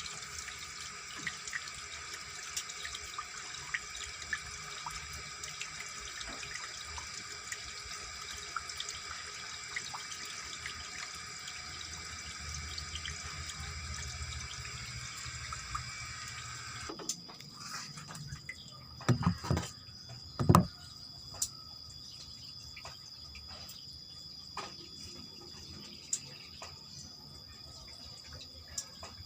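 Water draining out of a washing machine through its drain hose in a steady flow that cuts off suddenly a little past halfway, followed by a few loud knocks.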